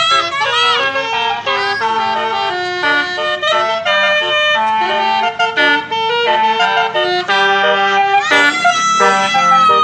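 Basuri telolet multi-tone horn on an odong-odong playing a quick tune, its reedy horn notes stepping rapidly from pitch to pitch. Near the end it holds one long note.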